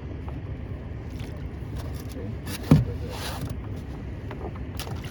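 Boat engine running with a steady low rumble. A single sharp thump comes a little past halfway, followed by a brief rushing noise.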